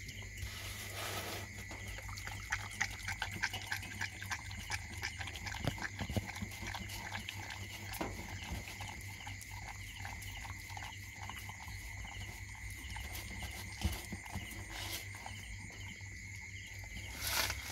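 A puppy lapping milk from a stainless steel bowl: many quick, irregular tongue clicks.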